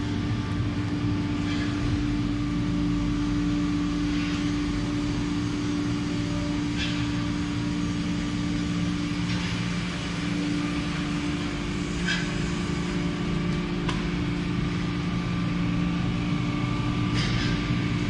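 Automatic corrugated cardboard baler running: its hydraulic power unit gives a steady, even hum. Brief hisses come about every two to three seconds over it.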